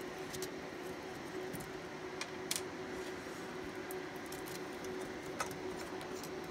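Steady machine hum with a few faint clicks as a SAS cable and its plastic plug are handled and fitted to the server's backplane connector.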